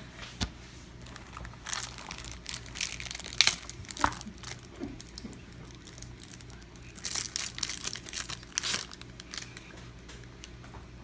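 Yu-Gi-Oh! booster pack's foil wrapper being crinkled and torn open, in two spells of crackling: one from about two seconds in, another around seven seconds in.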